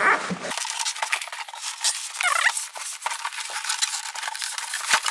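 Dense rustling, scraping and clicking of cardboard and plastic packaging being wrestled out of a shipping box, with a short squeak a little after two seconds. The sound is thin, with almost no low end.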